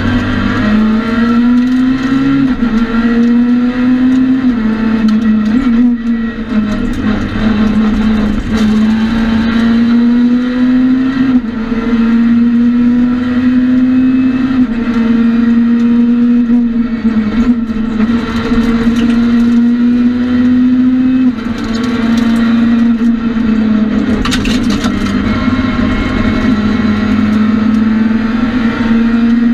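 Citroën C2 R2 Max rally car's four-cylinder engine heard from inside the cabin, pulling hard at high revs. Its pitch climbs steadily and drops sharply at each upshift, every few seconds, with a few brief lifts off the throttle.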